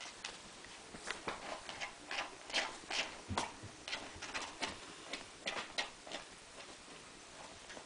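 A cat digging and scratching in a plastic litter tray of wood-shaving litter: an irregular run of quick scratchy scrapes, busiest in the middle and thinning out near the end.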